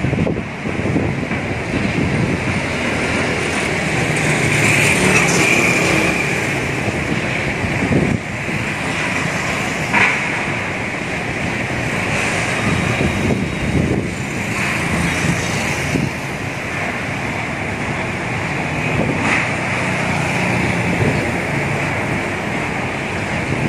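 City street traffic: a steady mix of engine and tyre noise from buses, cars and motorbikes passing, swelling as vehicles go by.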